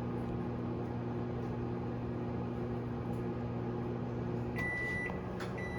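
GE over-the-range microwave oven running with a steady hum, heating on its newly replaced magnetron. About four and a half seconds in, the hum drops and the oven gives two short high beeps, the end-of-cycle signal.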